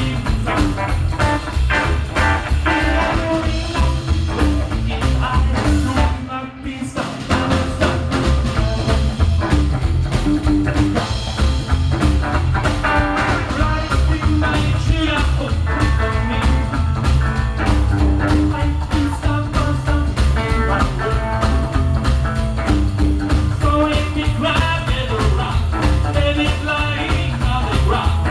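Live band playing an upbeat rock-and-roll number, with guitar and a strong, steady bass-and-drum beat. About six seconds in the band briefly drops out for around a second, then comes back in full.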